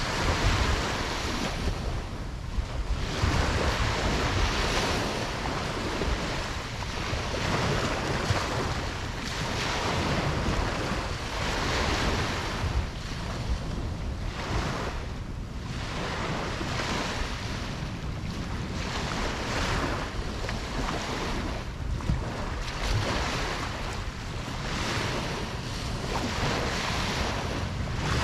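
Ocean waves breaking and washing up a beach, swelling and fading every two to three seconds, over a steady low rumble of wind on the microphone.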